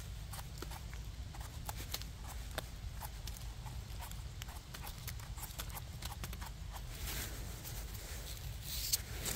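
Footsteps on a forest floor: irregular cracks and crunches of twigs and dry leaves underfoot, with a longer rustle near the end.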